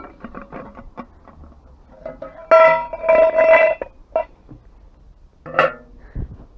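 Scrap metal being handled: a few light clicks, then two loud clangs about two and a half seconds in that ring on for over a second, and another knock near the end.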